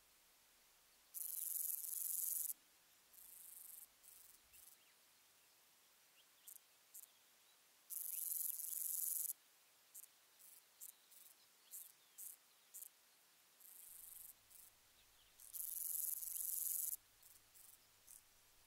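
Grasshopper stridulating, its hind legs rasping against its wings: three loud, high hissing buzzes about a second and a half long, roughly seven seconds apart, with shorter, softer buzzes and quick ticks between them.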